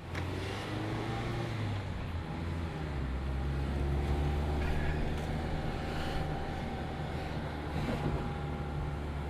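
Mazda ND2 Miata's four-cylinder engine and aftermarket-compared exhaust running at a steady speed, a low even engine note with a slight change in pitch about two seconds in.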